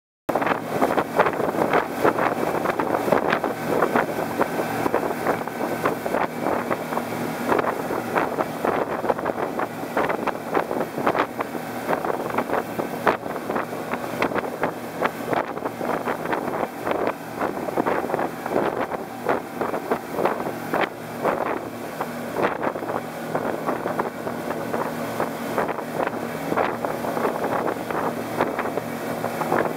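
Twin outboard motors running at speed, with the wake's water rushing and splashing hard behind the boat and wind buffeting the microphone.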